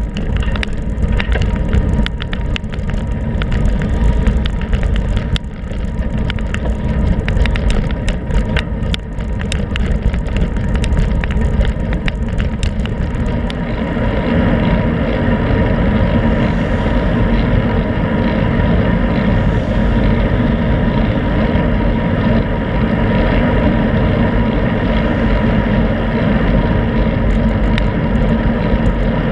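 Wind rush and road rumble on a handlebar-mounted GoPro on a road bike at riding speed, with frequent small clicks and rattles through the first half, then a steadier rush.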